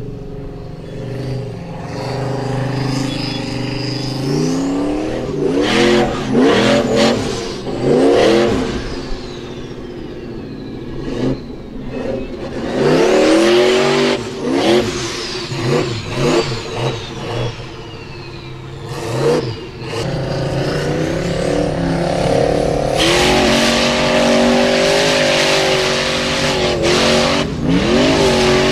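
Formula offroad buggy's engine revving hard on a steep dirt hill climb. The throttle is blipped up and down repeatedly, then held high for several seconds near the end over a hiss of spinning tyres throwing dirt.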